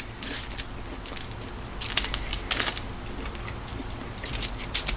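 Close-up eating sounds: chewing a mouthful of cauliflower fried rice, with clusters of short crisp wet clicks, and a plastic fork scraping through the food on aluminium foil.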